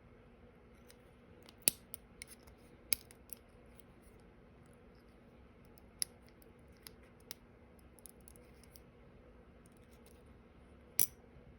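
Sharp small clicks and snaps of the plastic and die-cast parts of a model truck cab being pried apart, with four louder snaps a few seconds apart. A faint steady hum lies underneath.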